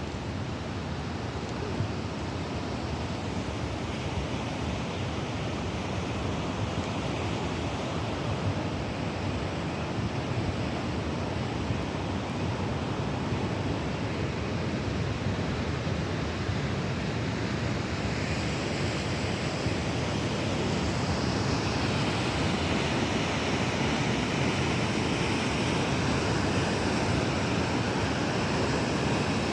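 Rushing canyon creek and waterfall water, a steady roar that grows gradually louder and hissier through the second half.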